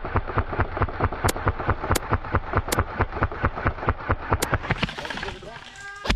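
Airsoft gun firing a long full-auto burst: a rapid, even rattle of shots, with a few sharper, brighter cracks among them, stopping about five seconds in.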